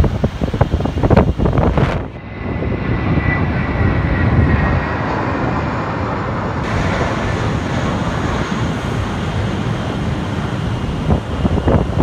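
Jet airliner taking off, its engines making a steady roar at takeoff power with a faint whine, after wind buffeting the microphone for the first couple of seconds; wind gusts on the microphone return near the end.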